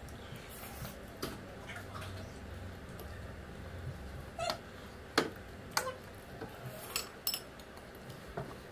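Metal forks clinking and scraping against cut-glass bowls of noodles: a scattered series of sharp clinks, some with a short glassy ring, over quiet eating.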